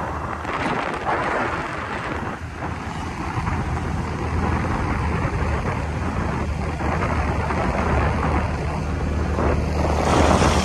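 Wind rushing over the microphone of a moving vehicle on a wet road, with its engine and tyres running low and steady underneath. Near the end the noise swells as the vehicle draws alongside a bus.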